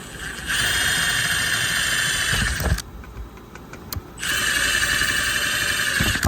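Cordless power drill running in two bursts of about two seconds each, a steady high whine, likely driving screws to fasten the vent fittings.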